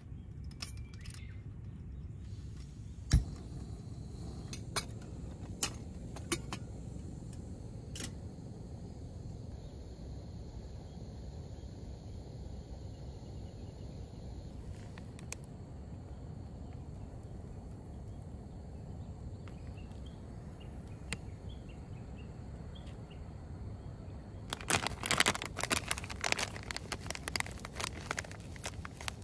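A few separate light clinks over a low steady background rumble, then about three seconds of rapid clinking and rattling near the end, typical of a cup and utensils being handled while making iced tea.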